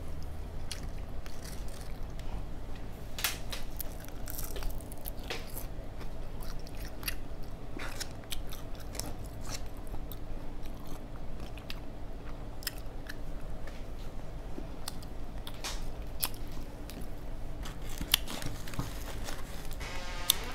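A person chewing and biting crisp fried flounder close to the microphone, with scattered crunches and wet mouth clicks, over a steady low hum.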